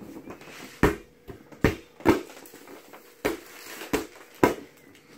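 Rubber playground ball bouncing on a wooden floor: six sharp thumps at uneven intervals.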